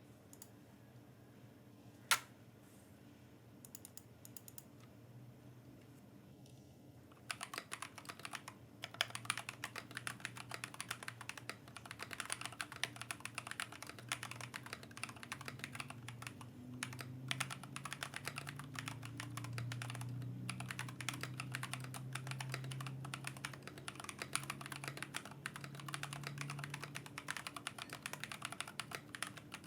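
Continuous fast typing on a Glorious GMMK Pro keyboard with Glorious Panda tactile switches on an aluminium plate, under KBDFans NP profile keycaps: a dense run of keystroke clacks. The first several seconds are quiet apart from one sharp click about two seconds in, then the typing starts about seven seconds in and keeps on.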